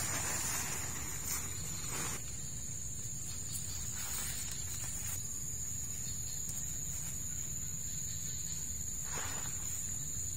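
A steady, high-pitched drone of insects, with a few brief soft rustles of nylon tent fabric as it is handled.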